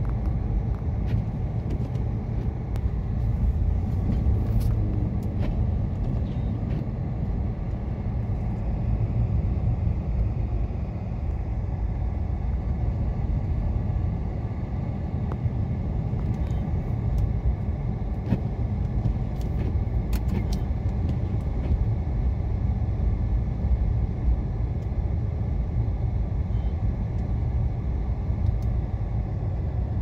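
Steady low rumble inside a moving car's cabin: tyres running over a snow-covered road, with the engine under it. A few faint ticks sound now and then.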